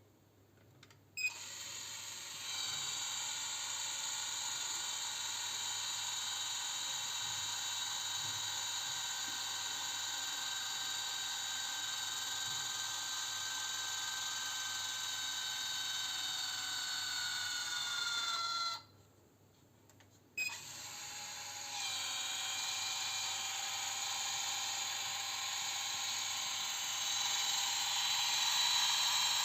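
A high-pitched machine whine with several steady tones, running with a slight downward drift in pitch. It cuts out for about a second and a half two-thirds of the way in, then restarts with a click and runs on.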